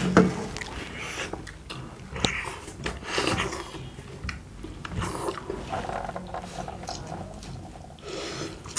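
People eating momo dumplings with no hands, mouths straight to the plate: irregular chewing and wet mouth noises with small clicks.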